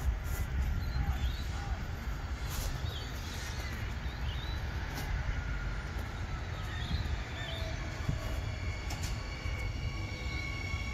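Electric suburban train on the tracks: a steady low rumble, with a whine of several steady high pitches coming in near the end.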